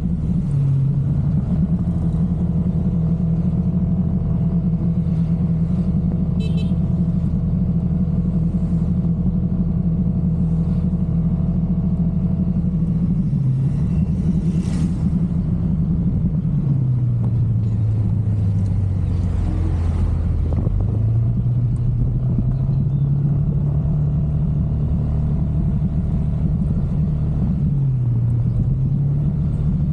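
Yamaha NMax scooter's single-cylinder engine running under way at a steady pitch; the pitch drops lower as it slows about halfway through, rises again a few seconds later, and dips briefly near the end.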